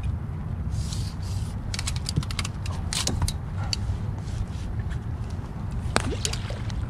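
Sharp small clicks and light rattles of fishing gear being handled on the boat, clustered about two to three seconds in with one louder click near the end, over a steady low rumble.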